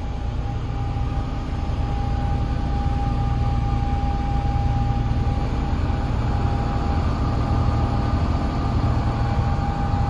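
DAF LF230 truck's 230 bhp turbo diesel engine running steadily, heard from inside the cab as a low drone with a thin steady whine above it. It swells a little over the first couple of seconds and then holds.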